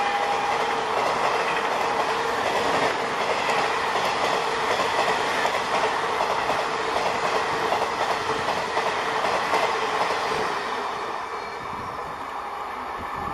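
Duronto Express passenger coaches passing close by at speed: a loud rush of wheels on rail with a rapid clickety-clack over the rail joints, fading toward the end.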